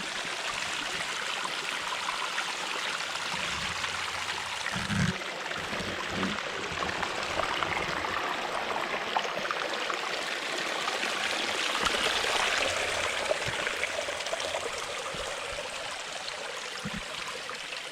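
Water of a pondless waterfall running and splashing down its rock cascade, a steady rush that grows a little louder about two-thirds of the way through. A few soft knocks sound under it.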